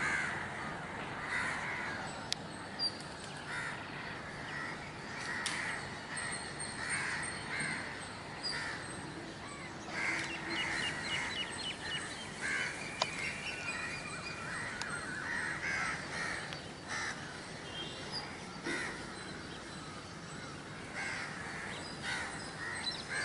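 Crows cawing repeatedly, with a few higher bird chirps in the middle.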